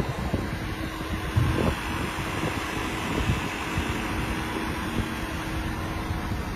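Steady background hum like a running vehicle or machine, with wind on the microphone and a few light knocks.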